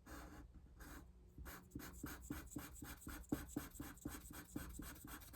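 Faint scratching of a pink marker colouring in icons on a paper challenge sheet, in quick back-and-forth strokes, several a second.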